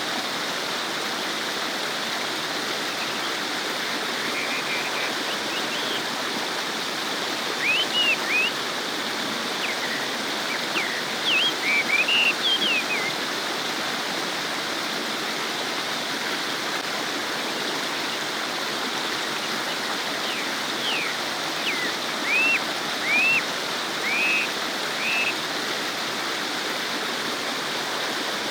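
Babbling stream, water flowing steadily over stones. Short high chirps break in over it in small groups, several times.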